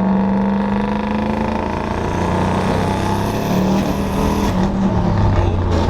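Turbocharged Ford Mustang Bullitt 5.0 V8 pulling under load on a test drive. Partway through a rush of air rises and the engine note drops, which the crew take for the charge pipe popping off: a boost leak.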